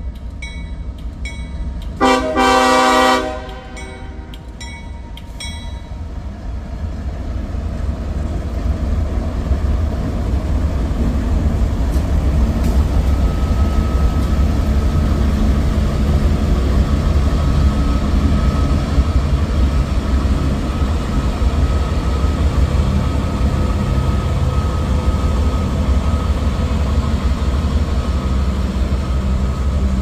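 A CSX diesel freight train approaching and passing: one short blast of the locomotive horn about two seconds in, then the low rumble of the locomotives' engines and wheels on the rails, growing louder over the next few seconds and holding steady as they go by.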